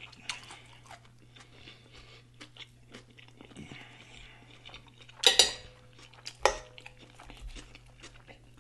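Close-miked mouth sounds of a man chewing a pickled pepperoncini pepper, with many small wet clicks and crunches. Two louder sharp clicks come about five and six and a half seconds in, the first with a faint ring like a fork touching the plate.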